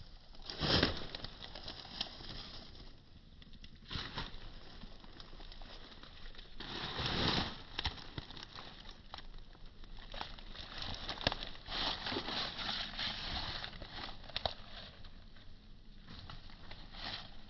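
Strong wind gusting outdoors with rustling and crackling, swelling and easing, with louder surges about a second in and around seven seconds in.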